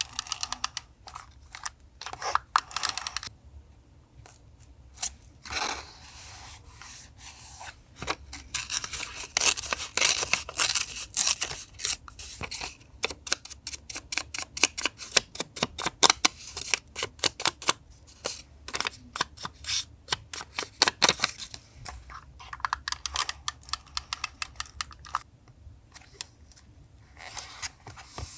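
Paper handled for journal collage: crisp rustling and crinkling with long runs of quick, sharp snips and crackles, broken by short pauses.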